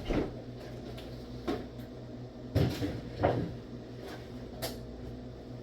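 Refrigerator door and contents being handled: a handful of separate clunks and knocks as things are moved and put away inside, over a steady low hum.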